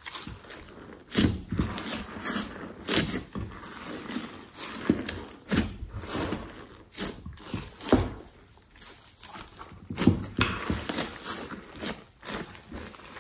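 Thick glossy slime squeezed, stretched and pressed by hand in a glass dish, making irregular sticky clicks and pops with softer squishing between them.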